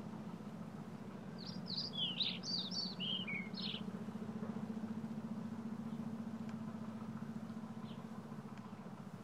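A small songbird singing a quick, jumbled phrase of high chirps for about two seconds, then a single chirp near the end, over a steady low hum.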